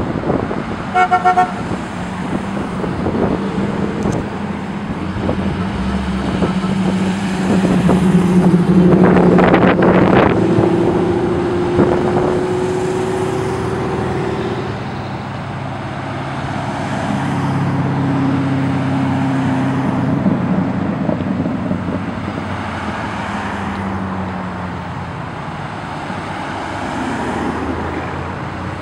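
A procession of Corvettes driving slowly past one after another, their V8 engines running steadily and swelling loudest as one passes close about ten seconds in, its note rising. A car horn toots a few quick times about a second in.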